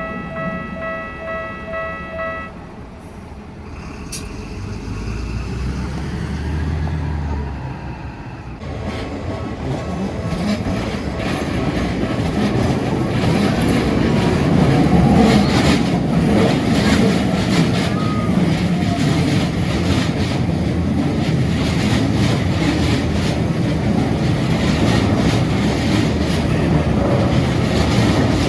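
Japanese level-crossing warning bell clanging in a fast pulsing rhythm, which stops about two seconds in, followed by a low rumble. Then the bell starts again faintly and a Keikyu train passes through the crossing, its noise growing loud from about twelve seconds in and staying loud.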